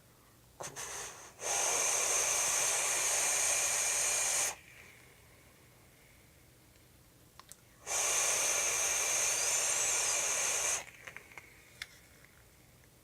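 Air hissing through a Phobia RDA rebuildable dripping atomizer during two drags of about three seconds each, with the atomizer's airflow separator pushed to one side. A few faint clicks come before and after each drag.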